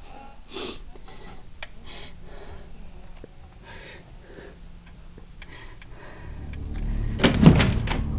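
A few soft sniffs and small clicks, then a low drone swells from about six seconds in. A door opens, loudest about seven and a half seconds in.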